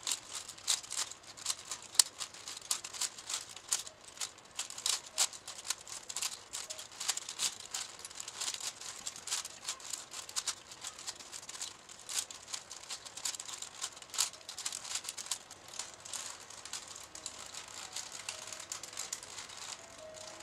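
A plastic 5x5 puzzle cube being turned rapidly by hand: a continuous, irregular run of clicks and rattles as its layers are twisted, with one sharper click about two seconds in.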